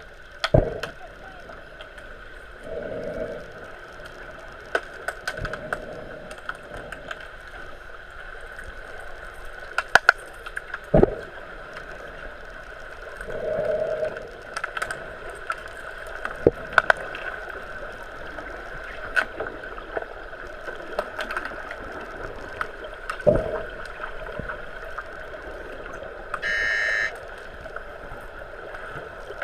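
Underwater sound of an underwater hockey game: sharp clacks of sticks and the lead puck striking the pool's tiled bottom, over a steady hum, with a few swells of bubbling. Near the end a short electronic buzzer sounds underwater, the referee's signal to stop play.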